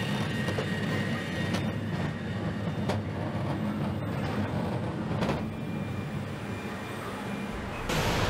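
Truck assembly hall ambience: a steady low machinery rumble and hum, with a few sharp clicks and knocks, turning louder near the end.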